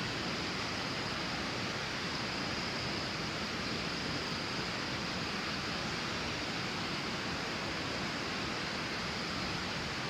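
Steady rushing of water, an even noise that holds at one level without breaks.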